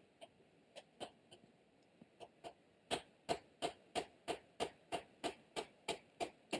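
Batoning: a light wooden baton strikes the spine of a quarter-inch D2 steel bush knife, driving the blade down through an upright stick. A few faint, scattered knocks at first, then a steady run of sharp knocks at about three a second from about halfway in.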